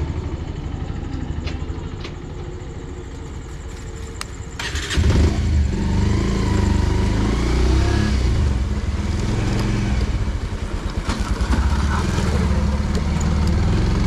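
Motorcycle engine idling with a few light clicks, then revving up about five seconds in as the bike pulls away and rides along slowly. The engine note rises and falls as the rider works the throttle and gears.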